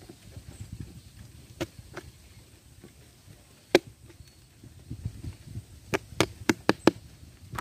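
Sharp clicks of pliers working a short piece of wire through a cardboard box, over soft cardboard handling noise. Two light clicks, a single loud one about midway, then a quick run of five near the end.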